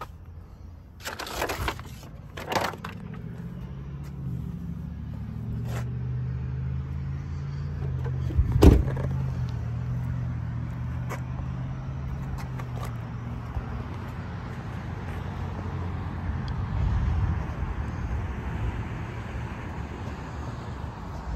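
A Ford 6.4 Power Stroke V8 diesel idling steadily in a 2009 F550 service truck. Two short hissing bursts come near the start, and a single sharp bang like a door slam lands about a third of the way in.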